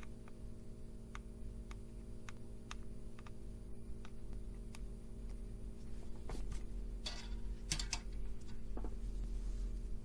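Light, scattered clicks and ticks of small tools and electronic components being handled on a circuit board, with a few short scraping rustles about two thirds of the way in, over a steady low hum.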